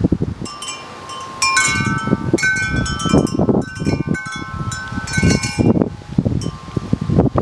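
Wind chime ringing: several tuned tones struck irregularly and ringing on, over a low, uneven rumble.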